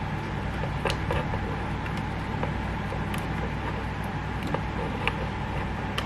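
Light, scattered clicks and taps of plastic GoPro accessories being handled and fitted together, over a steady low hum.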